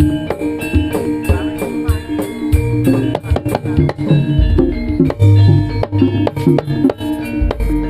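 Jaranan gamelan music: a busy pattern of kendang drum strokes over ringing bronze metallophone notes, with deep gong strokes sounding out now and then.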